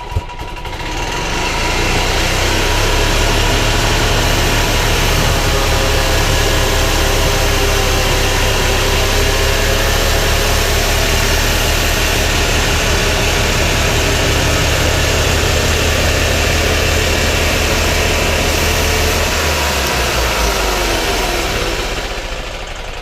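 Gasoline engine of a homemade sawmill built from an old golf cart, speeding up over the first couple of seconds, running steadily at speed, then slowing down near the end.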